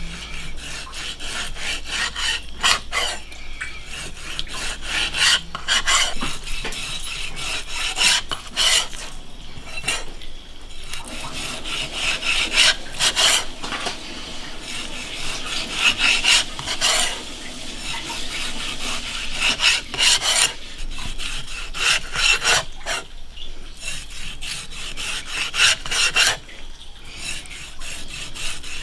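Cleaver blade scraping along the thick skin of sturgeon fillets against a wooden chopping block as the skin is cut away from the flesh: a long run of irregular scraping strokes.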